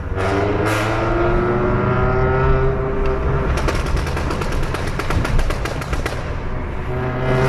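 Volkswagen Golf 7 engine revving, its pitch climbing over the first few seconds. Then, about three and a half seconds in, the exhaust lets out a rapid string of crackles and pops for nearly three seconds as the revs drop off.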